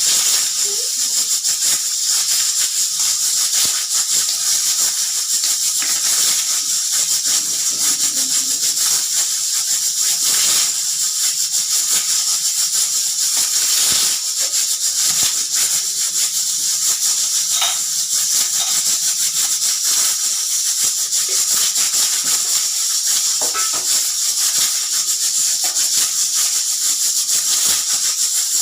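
Pressure cooker whistle venting steam: a loud, steady hiss of escaping steam that holds on without a break.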